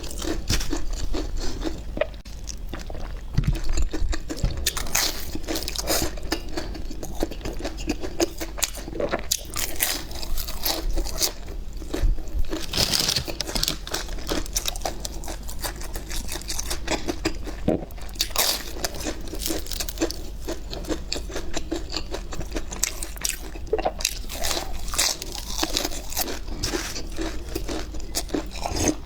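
A person biting into and chewing pie close to the microphone: a dense, continuous run of crunches and chewing.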